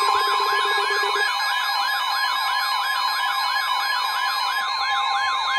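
Electronic siren sounding a rapid yelp, sweeping up and down about four times a second over a steady high tone. A low buzz under it stops about a second in.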